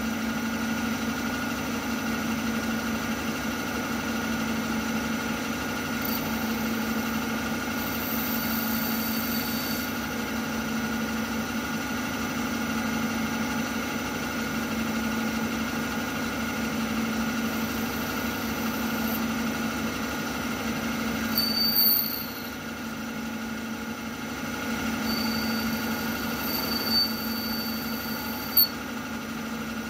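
CNC milling machine run as a lathe: its spindle hums steadily while a fixed turning tool cuts the spinning brass bar. A high-pitched squeal comes and goes several times, and a sharp click sounds near the end.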